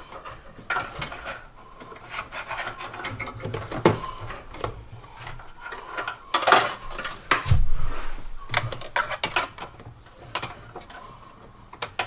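A stiff guide wire and hands working inside a van's plastic-trimmed rear quarter panel, giving irregular scraping, rubbing and clicking as the wire keeps catching on an obstruction inside the panel. The scraping is busiest and loudest about six to eight seconds in, with a low thump in the middle of it.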